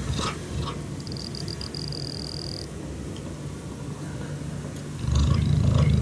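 Cheetah purring close up, a steady low rumble that grows louder about five seconds in.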